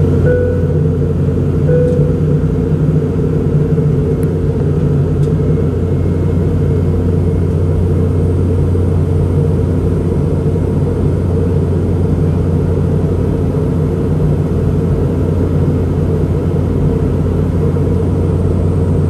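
Steady in-flight cabin noise of a Boeing 717-200: the drone of its two rear-mounted Rolls-Royce BR715 turbofans and the airflow, with a steady low hum and a few steady tones. Two brief tones sound about a second and a half apart near the start.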